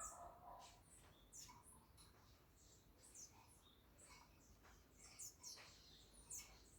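Flock of birds chirping faintly: short, high-pitched chirps from several birds, about two a second, overlapping irregularly.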